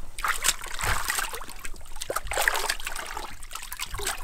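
Wet wool felt being squeezed and worked by hand, with irregular splashing and trickling of water.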